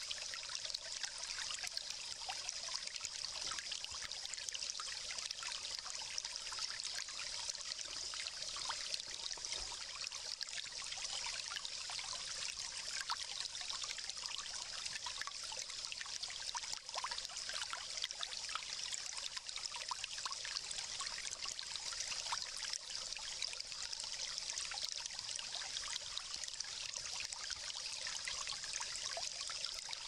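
Steady trickling rush of flowing water, continuous and even.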